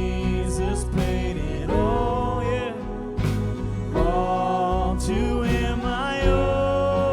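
Worship band playing a song with a singer, over bass and drums.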